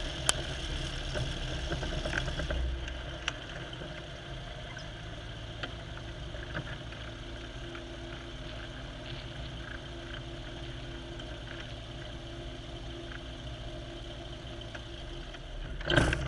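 Aircraft engine running with a steady drone, a little quieter from about two and a half seconds in. A brief loud noise comes near the end.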